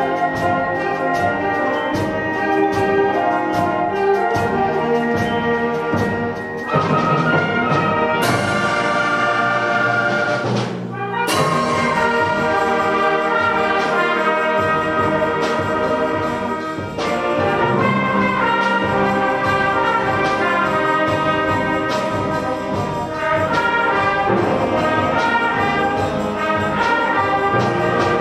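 Orchestral music led by brass, trumpets and trombones, with frequent percussion strikes and a cymbal-like swell that cuts off about eleven seconds in.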